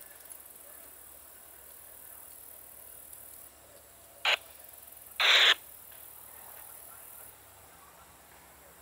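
Train horn sounded twice, a short blast and then a slightly longer one about a second later, over a steady low engine hum.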